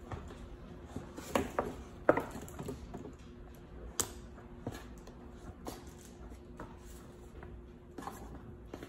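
An iPad Pro and its protective case being handled on a desk: a scattered series of light clicks and knocks as the tablet is pressed and shifted in the case, the loudest about two seconds in, over a faint steady hum.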